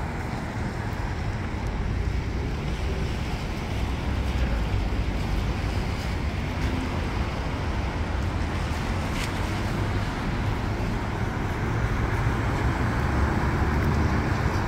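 Steady outdoor noise: wind rumbling on the microphone, over a wash of street traffic.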